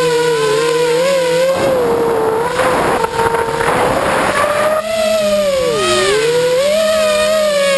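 FPV quadcopter's motors and propellers whining, the pitch wavering up and down with the throttle. A rushing noise covers the whine from about a second and a half in for some three seconds. Near the end the pitch dips sharply and climbs back.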